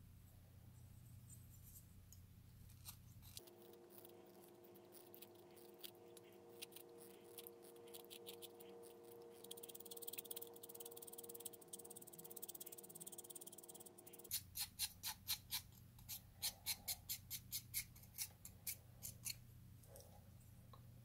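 Small hand-held Caran d'Ache pencil sharpener shaving a pastel pencil as it is twisted against the blade: faint scrapes and clicks at first, then a quick run of sharp scraping strokes, about three a second, in the last third.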